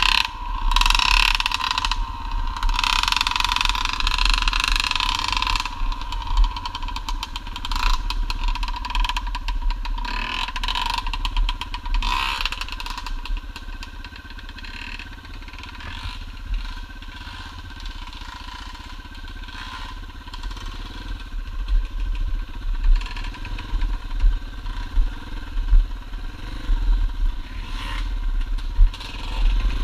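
Dirt bike engine running while riding a trail, rising and falling with the throttle, with rattles and knocks from the bike over bumps. It is louder in the first dozen seconds, eases off through the middle, and is busier with knocks near the end.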